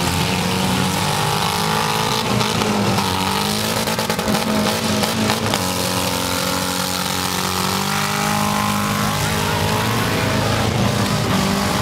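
Several demolition-derby cars' engines running and revving together, their pitches rising and falling over one another, with sharp knocks here and there.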